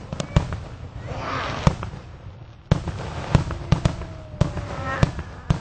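Aerial fireworks going off: a string of sharp bangs from bursting shells, with a spell of crackling about a second in and a short lull near the middle.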